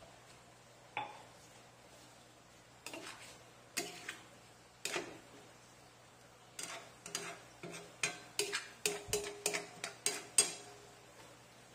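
Long metal spoon stirring a wet jackfruit and coconut milk mixture in a stainless steel wok, clinking and scraping against the metal pan. A single clink about a second in, a few scattered clinks, then a quicker run of clinks in the second half.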